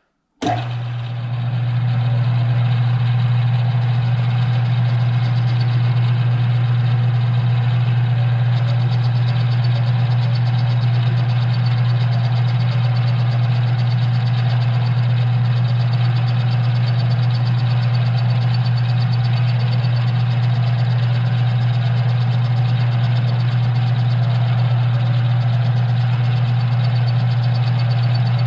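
Smithy CB-1220XL combination lathe-mill switched on: the spindle motor starts about a third of a second in, comes up to speed over about two seconds, then runs with a loud, steady hum.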